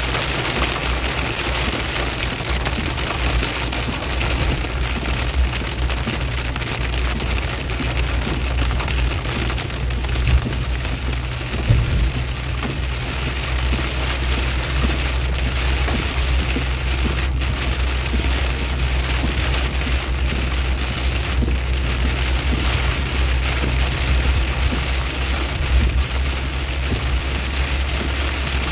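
Steady rain-like hiss over the low, even rumble of a car driving, with one short knock about twelve seconds in.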